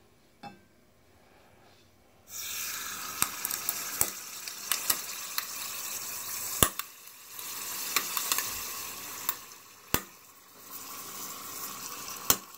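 Liquid nitrogen boiling hard around a room-temperature LED light strip lowered into it, a sizzling hiss that starts suddenly about two seconds in and comes and goes in waves. Several sharp clicks and pops sound through it.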